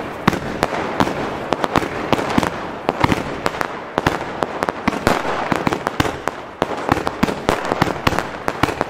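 Pyroland Hyper Maze compound firework cake (Goldglitter Blue, double crossette) firing continuously: a steady rush of launching comets under many sharp cracks, several a second, as the crossette comets split.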